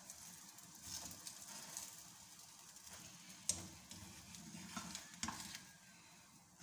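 Egg paratha faintly sizzling as it fries in a nonstick pan, with light scrapes and clicks from a plastic spatula turning it, the sharpest tap about three and a half seconds in.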